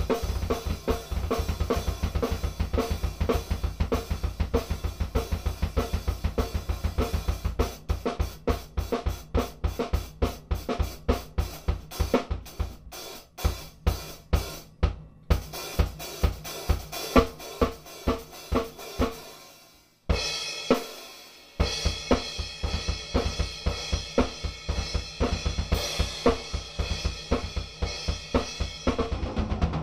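Acoustic drum kit played as a solo: rapid bass-drum strokes under snare and tom hits, with cymbals ringing. A little before two-thirds through the playing stops short, one hit rings out for over a second, and then the groove resumes.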